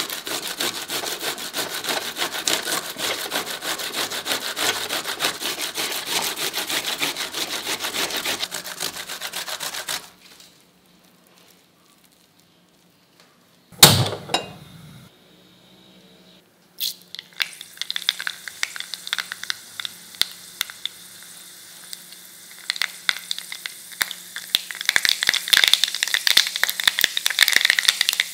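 A fresh sweet corn cob rasped against a steel grater in quick repeated strokes for about ten seconds. After a short pause comes one sharp click with a brief whoosh, like a gas burner being lit, and then hot oil in a stone kadai crackles and spits as seeds splutter, the popping growing busier near the end.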